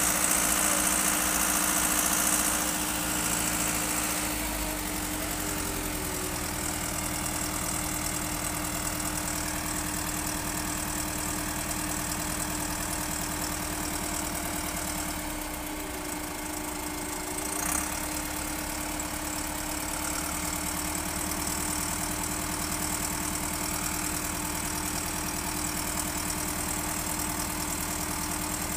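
Diesel engines of a Schwing truck-mounted concrete pump and a transit mixer feeding it, running steadily at a constant speed while concrete is pumped, with one short knock about eighteen seconds in.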